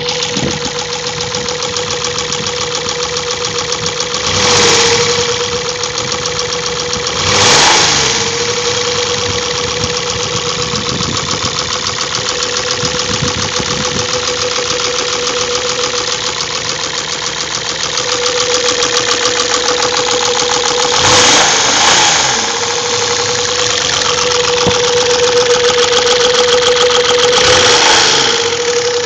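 Isuzu 6VD1 3.2-litre V6 petrol engine running with a rapid rattling knock that appeared suddenly, while oil pressure reads only 1 at idle. The engine idles and is blipped briefly a few times: about four and a half seconds in, at seven and a half, twice around 21–22 seconds, and near the end.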